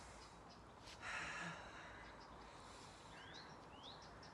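Quiet scene with one audible breath, about a second in, from a person holding a one-legged yoga balance. Near the end come two short rising bird chirps.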